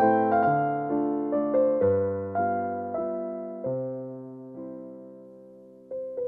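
Background piano music: a slow phrase of single notes and chords, each dying away, that fades almost out in the second half before a new note sounds just before the end.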